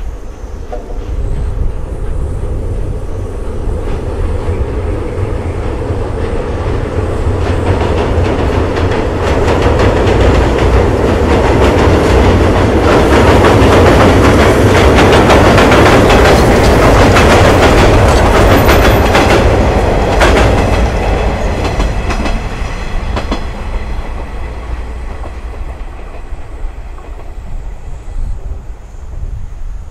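Steam locomotive and its passenger coaches crossing a steel truss bridge. The train noise builds over several seconds, is loudest midway, then fades as the train moves away.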